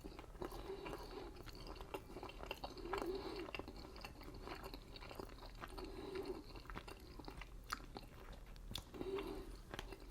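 Close-up chewing and biting of sauce-soaked chicken tenders: a faint, steady run of small mouth clicks and smacks.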